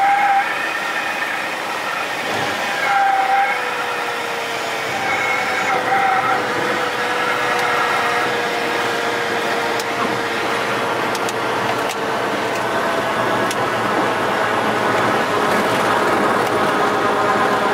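Cessna 172's piston engine and propeller running at low power, heard inside the cabin as the aircraft rolls along the runway after landing. A steady tone slowly falls in pitch over several seconds, and a brief higher whistle comes and goes a few times in the first six seconds.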